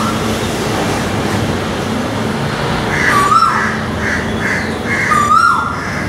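Male Asian koel calling: a whistled note that holds, lifts briefly, then slides down, heard twice about two seconds apart, with a run of softer repeated notes between them. Steady road traffic noise runs underneath.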